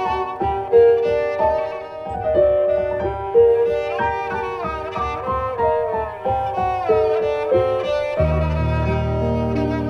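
Kamancha, a bowed spike fiddle, playing a melody over quick repeated notes from a keyboard synthesizer. About eight seconds in, a low held bass comes in underneath.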